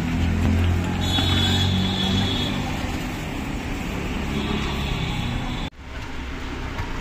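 Steady low rumble of street background noise, like passing traffic. It breaks off sharply for an instant near the end, then resumes.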